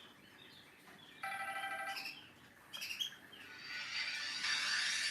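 Ringtone playing on a Samsung GT-C3782 mobile phone: bird-like chirps, a steady electronic tone held for about a second, more chirps, then a fuller melody swelling louder in the last second or so.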